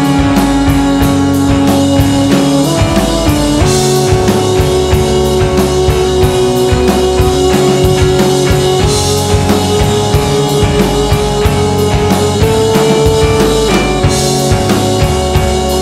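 Rock backing music with a driving drum beat under long held notes, with a cymbal crash about every five seconds.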